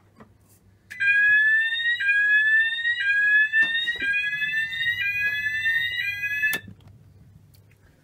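Fire alarm sounder going off after a smoke detector is set off by antiperspirant spray: a loud electronic tone that rises in pitch over each second and drops back to start again, about six sweeps. It cuts off abruptly with a click of the switch that kills the sounder relay.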